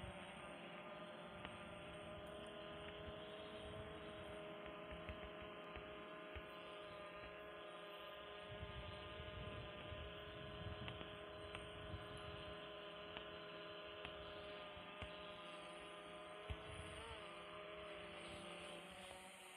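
Faint, steady multi-tone whine of a FIMI X8 SE quadcopter's propellers in flight, over a low uneven rumble of wind on the microphone. The pitch dips briefly about seventeen seconds in as the motors change speed.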